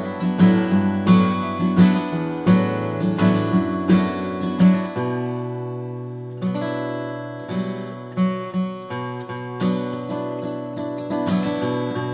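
Martin custom shop Style 28 acoustic guitar, Sitka spruce top with Madagascar rosewood back and sides, strummed in a steady rhythm. Midway a chord is left to ring for about a second and a half before the strumming picks up again.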